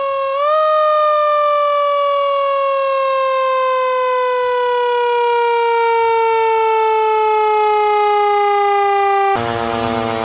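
Siren sounding one long tone that slowly falls in pitch. About nine seconds in it gives way abruptly to a fuller, buzzier sound.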